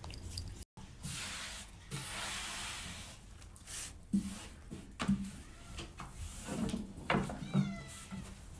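Thin wooden rolling pin (oklava) rubbing and rolling over a wooden pastry board as a sheet of dough is rolled out, with several sharp wooden knocks from about halfway.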